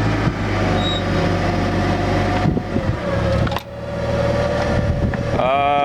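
An electric motor on the lifting gear humming steadily as the engine is raised or lowered, dropping out briefly twice partway through.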